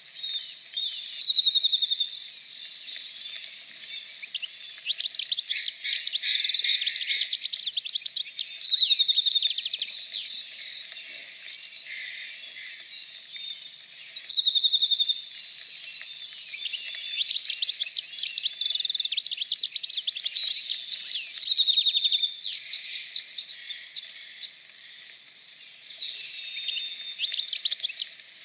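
Many birds chirping and singing at once, with fast overlapping trills and repeated loud buzzy trills about a second long.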